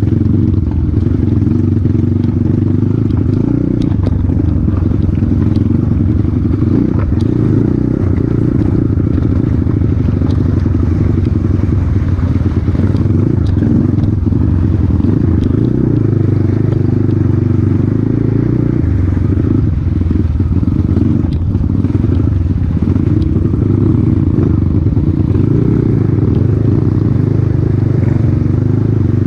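Motorcycle engine running steadily at a fairly even pitch.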